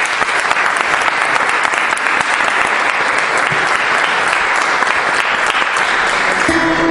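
Audience applauding, a steady dense patter of hand claps. A low steady tone comes in near the end.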